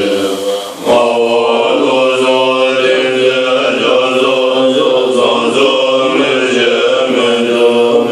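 Tibetan Buddhist monks chanting together in a steady, sustained recitation, with a short break for breath just under a second in.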